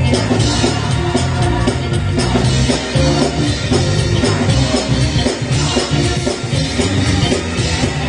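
Live church band music: a drum kit keeping a steady beat over keyboard and bass, backing a gospel choir's performance.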